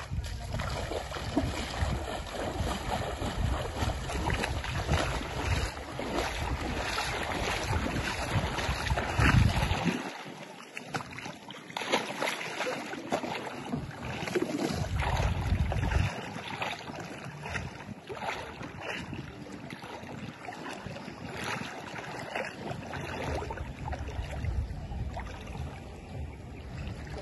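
Wind buffeting the microphone over shallow seawater, a rough low rumble that cuts out about a third of the way in and returns in a few gusts, with the wash of water underneath.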